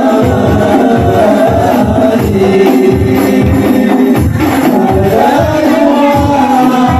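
Hadroh music: voices singing sholawat over a steady beat of rebana frame drums, about two beats a second.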